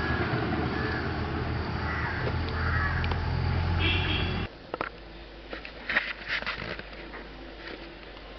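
Steady low hum with birds calling over it, cutting off abruptly about halfway through to a quieter room background with a few soft clicks.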